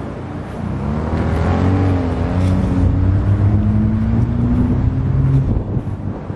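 A car engine accelerating, its note rising slowly and getting louder for about four seconds, then cut off sharply near the end as the throttle is lifted.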